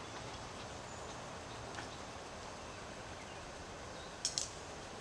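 Quiet woodland ambience: a steady soft hiss of outdoor background with faint bird chirps. Two short, sharp clicks a little after four seconds in.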